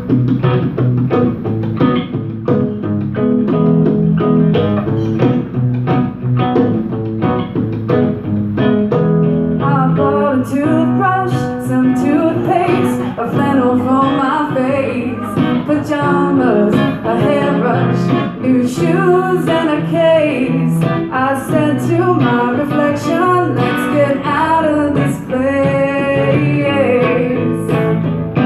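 Live acoustic guitar and a pair of conga drums playing a song together, with a woman's singing voice coming in about ten seconds in.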